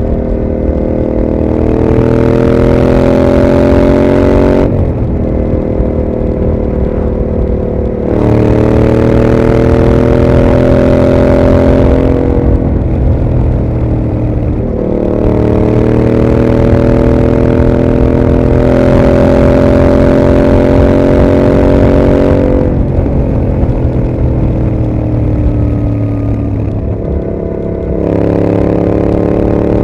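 2021 Yamaha MT-07's 689 cc parallel-twin running through a Mivv GP aftermarket exhaust while ridden. Its pitch climbs slowly under throttle for several seconds at a time, then drops back quieter off throttle, and this happens several times over.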